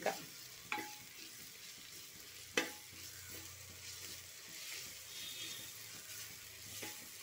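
Onions, green chillies and spice powders frying quietly in oil in an aluminium pressure cooker while a spoon stirs them, a soft steady sizzle as the masala is sautéed. The spoon knocks against the side of the pot twice, the louder knock about two and a half seconds in.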